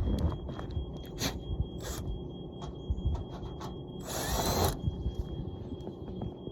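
A power drill runs in one short burst about four seconds in, between scattered knocks and clicks of work on the furnace's sheet metal.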